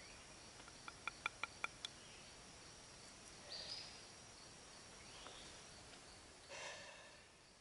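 Quiet woodland ambience with a steady high insect drone. About a second in there is a quick run of five light, pitched knocks of wooden pieces being handled, and a few short bird calls follow later.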